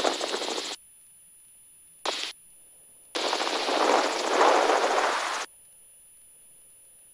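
Helicopter cabin noise picked up by the intercom headset mic, a rapid rattling pulse that cuts in and out abruptly as the mic opens and closes. It comes in three bursts: one that stops under a second in, a short one about two seconds in, and a longer one from about three to five and a half seconds.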